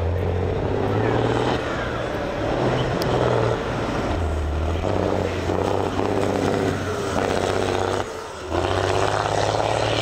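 Diesel engine of a GINAF Dakar rally truck, Cummins-badged, running hard as the truck crosses dirt humps, its low note stepping up and down with the throttle. The level drops briefly about eight seconds in, then the engine pulls hard again.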